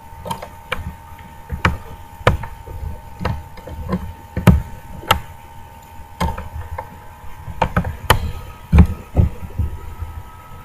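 A series of irregular knocks and clicks with dull thuds: a pen drive being pushed into a computer's USB port by hand, knocking against the casing.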